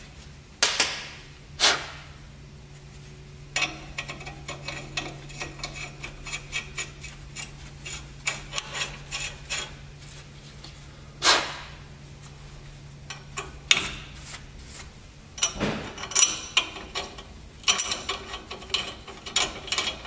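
Scattered metal clinks and taps from U-bolt nuts, washers and the steel bracket being handled and started on the leaf-spring U-bolts of a Ford F450, with a few louder sharp metal knocks.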